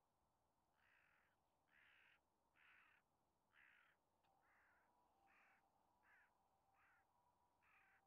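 Faint, harsh bird calls: about nine rasping calls in a regular series, roughly one a second.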